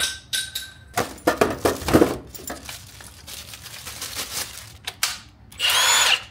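Packaging rustling and hard plastic parts clattering on a workbench. Near the end comes a brief burst from a Milwaukee M18 Fuel cordless impact wrench, its motor spinning up and winding down with no load on it.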